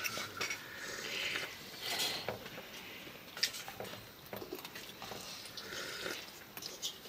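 A child slurping noodles and chewing close up: a few short, hissy slurps with small mouth clicks between them.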